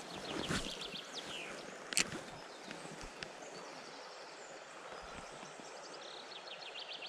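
Steady rush of a flowing river with a songbird's trill of quick descending notes, once near the start and again near the end. A single sharp click about two seconds in.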